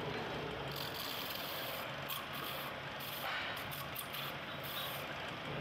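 Metal-spinning lathe turning an aluminium pot: a steady machine hum, with several short bursts of high hissing about one to five seconds in.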